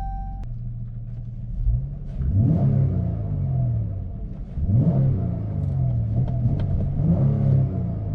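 2018 Dodge Charger engine idling and blipped three times, each rev rising quickly and falling back to idle, breathing through a freshly fitted K&N high-flow drop-in air filter. A steady beep cuts off just as it begins.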